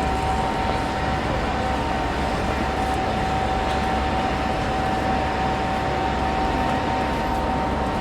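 Railway station ambience: a steady, even rumble of trains with one constant high hum running through it.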